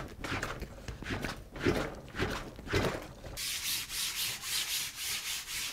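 Hands kneading a lump of clay on a canvas-covered plywood table: a run of soft pushes and thuds. About three seconds in it switches to a damp sponge wiping across the canvas, a steady rubbing hiss in quick back-and-forth strokes.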